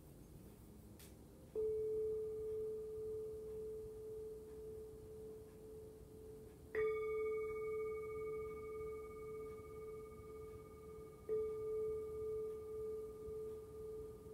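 A handheld singing bowl is struck three times with a wooden striker, about five seconds apart. Each strike rings on in a long, slowly pulsing tone with fainter higher overtones, and each new strike lands before the last has died away. The bowl is rung to bring the class out of savasana at the end of the practice.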